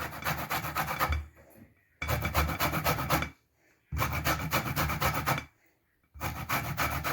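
Lemon peel being grated by hand on a grater: quick rasping strokes in four bouts, with short pauses between them.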